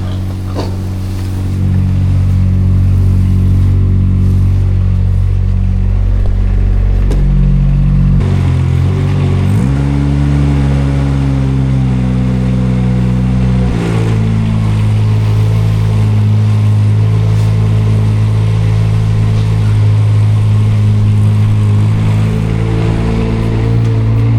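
Front-loader tractor's engine running loudly. Its engine speed changes about 8 seconds in, rises at about 10 seconds, sags slowly, then drops back to a steady run at about 14 seconds.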